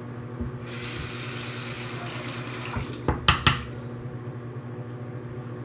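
Bathroom sink tap running for about two seconds and shut off, then three sharp clacks of hard objects knocking against the sink, the loudest sounds here, over a steady low hum.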